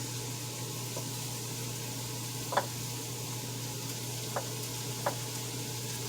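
Cabbage sizzling in hot pork drippings in a pot, a steady frying hiss, with a few light knocks, the loudest about two and a half seconds in.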